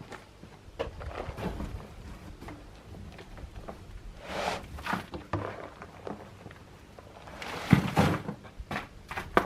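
Scattered knocks, thuds and scraping of hands-on work, with two louder rushing scrapes about four and a half and eight seconds in.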